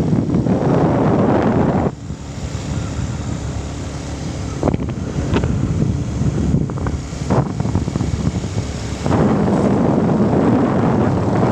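Wind buffeting the microphone, a heavy low rumble that comes in gusts: strong for about the first two seconds, easing off, then strong again from about nine seconds in, with a few faint clicks in the lull.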